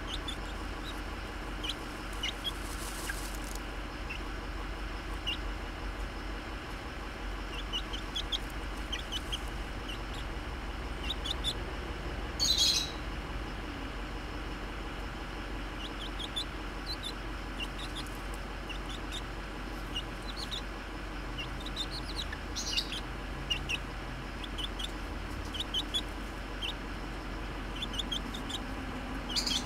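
Young chicken peeping: short, high chirps scattered at irregular intervals while it dust bathes, with one brief, louder scratchy burst about twelve seconds in.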